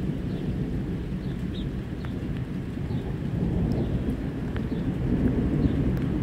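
Distant thunder rumbling low and continuously as a storm approaches, growing a little louder about four seconds in.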